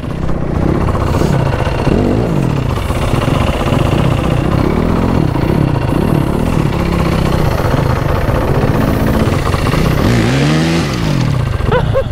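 Off-road vehicle engine, ridden hard, revving up and falling back over and over; the pitch rises and drops several times a few seconds apart.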